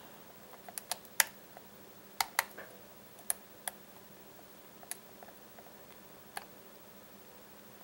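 Light, irregular metallic clicks from a lock pick lifting the pins of a Baldwin pin-tumbler cylinder under tension, about a dozen spread over several seconds with a few sharper ones, the pins clicking as they set.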